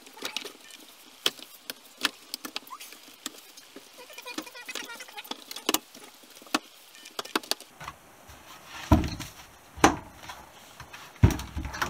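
Hard plastic halves of a VW Golf Mk2 heater box clicking and knocking together as the upper housing is fitted onto the lower half, with many small sharp taps. Two louder thumps come near the end.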